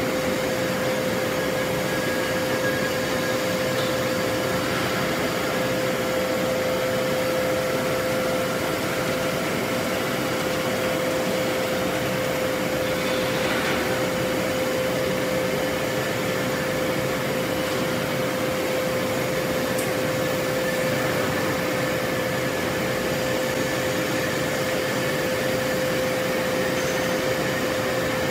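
Steady industrial drone beside an open forging furnace: an even rushing noise with a steady hum that does not change.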